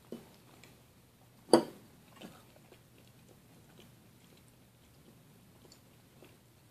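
A few brief knocks in a quiet room, the loudest about one and a half seconds in, with a smaller one just after and faint clicks.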